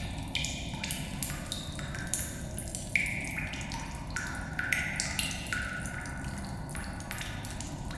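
Water drops dripping in a cave, each drip a short echoing plink at a different pitch, about two a second, over a steady low background rumble.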